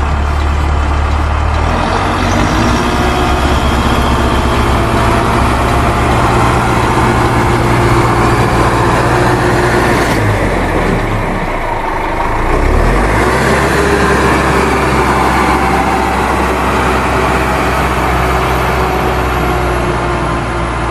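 A heavy vehicle's engine running steadily, with a short dip about eleven seconds in.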